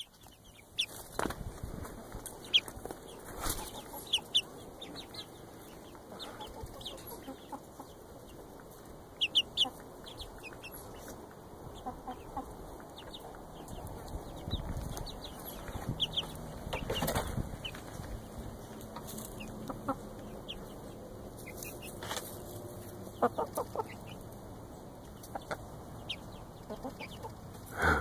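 Isa Brown hens clucking and giving short high peeps now and then. Scattered knocks and rustles come from the birds being handled.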